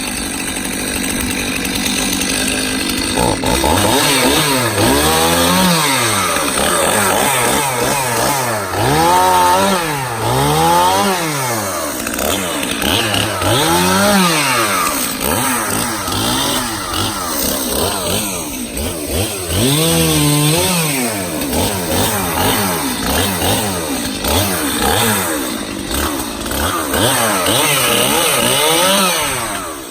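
Two-stroke Stihl chainsaw cutting through fallen oak limb wood. The engine revs up and falls back again and again, about half a dozen times.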